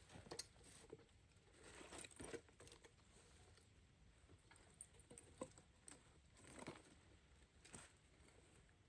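Near silence, with faint scattered crackles and rustles.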